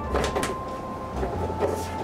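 Hands rummaging through the van's wall shelving: repeated knocks, clacks and rattles of parts and materials being moved about, with a steady high tone and a low hum underneath.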